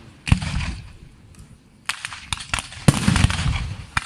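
Fireworks shells bursting in the sky. A boom comes about a third of a second in and dies away in a rumble, then a quick run of sharp pops around two seconds. A louder boom with a rumbling tail follows just before the three-second mark.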